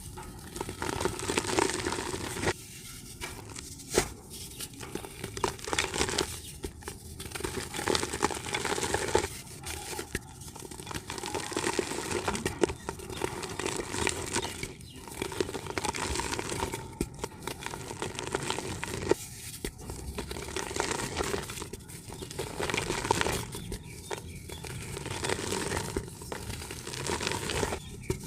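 Soft red dirt crumbling in repeated crackly bursts, each a second or two long, with short pauses between.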